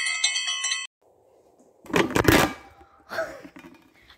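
A short bright chime jingle with several steady ringing tones, lasting about a second, then a brief loud noisy burst about two seconds in.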